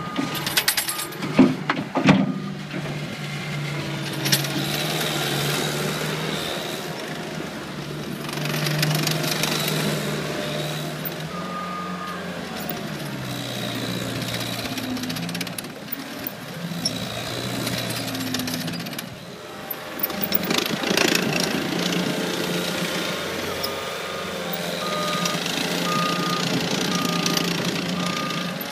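Cat 267B compact track loader's diesel engine running while the machine is worked, its speed dropping about twelve seconds in and picking up again a few seconds later. A few sharp knocks come at the start, and the backup alarm beeps near the end.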